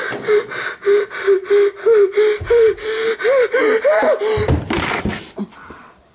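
A person gasping and panting rapidly in panic, about three breaths a second, with a held, wavering whimper voiced through the breaths. A loud thump or scuffle comes about five seconds in, and then the sound falls away.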